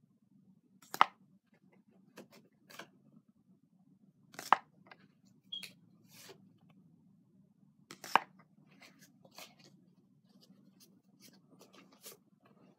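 Pokémon trading cards being handled: three sharp card snaps a few seconds apart, with softer clicks and rustles of the cards between them, over a steady low hum.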